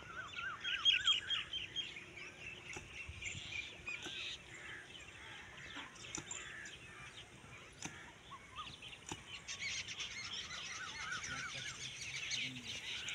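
Small birds chirping: quick runs of short, repeated rising calls, several overlapping, with a few faint ticks among them.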